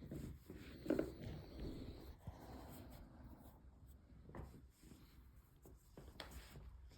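Faint rustling and rubbing of a knit jersey being handled, with a few soft taps, the loudest about a second in.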